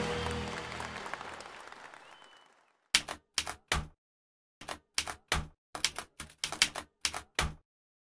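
Outro music fading away over the first couple of seconds, then, after a brief silence, a typewriter sound effect: about fifteen sharp key strikes in uneven runs, matching text being typed onto the screen.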